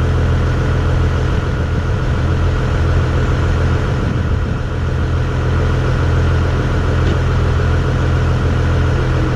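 Tractor engine running steadily at a low, even idle.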